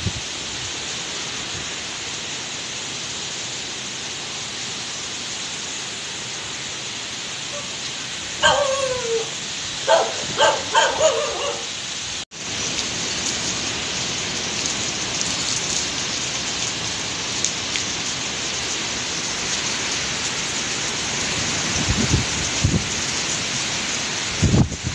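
Typhoon wind and heavy rain, a steady rushing noise. A dog barks about four times around a third of the way in; after a brief break the wind and rain come in louder, with a few low thuds near the end.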